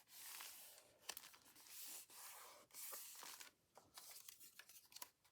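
Faint rustling of paper and card being handled: several soft swishes about a second long, with a few light taps between them.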